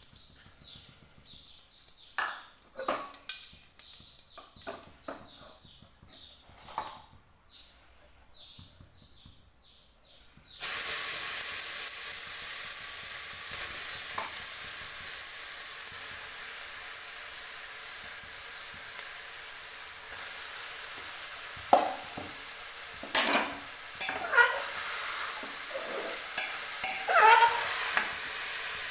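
Bay leaves and cardamom frying in hot ghee in a pressure cooker. The steady sizzle starts suddenly about a third of the way in, with a spoon stirring and knocking against the pot now and then. Before it, only a few light clicks and taps.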